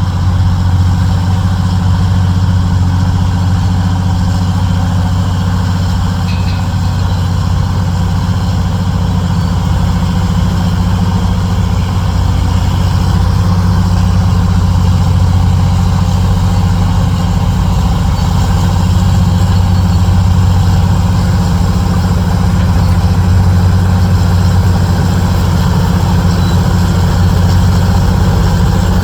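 Heavy dump truck's diesel engine running steadily with a deep, even hum, growing a little louder about halfway through.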